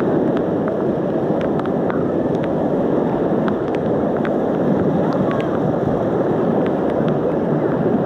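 Swollen, muddy river rapids rushing close up: a steady, loud churning of floodwater, with scattered brief splashes.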